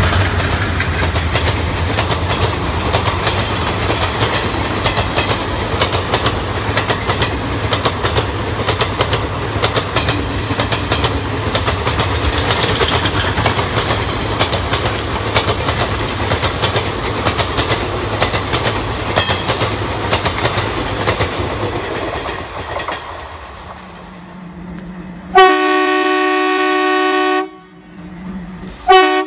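Passenger coaches of a diesel-hauled express passing at speed, wheels clattering steadily over the rail joints; the noise fades away. Then a diesel locomotive's horn gives one blast of about two seconds, and a short toot follows near the end.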